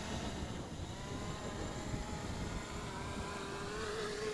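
Ruko F11 GIM2 quadcopter drone's propellers whining as it hovers and descends, the pitch wavering as the motors fight the gusts. Strong wind buffets the microphone with a low rumble underneath.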